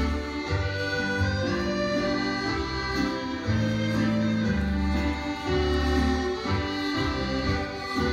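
Scottish country dance music: a fiddle-led strathspey with a steady bass line under it.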